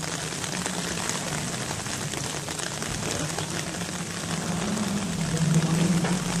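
Steady hiss of rain with a crackly patter, over the low note of a distant rally car engine that draws nearer and grows louder near the end.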